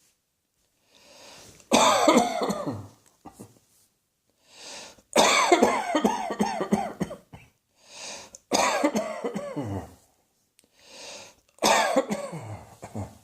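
A person coughing in four fits about three seconds apart. Each fit is a quick run of loud, voiced coughs falling in pitch, with a breath drawn in just before it.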